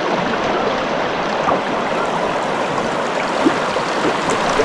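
River water flowing steadily, an even rush of running water.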